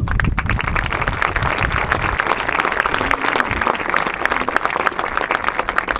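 Crowd applauding, starting suddenly and keeping up a dense, even clapping.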